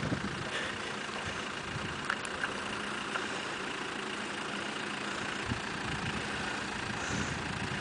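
Off-road vehicle's engine running steadily, with a few small knocks.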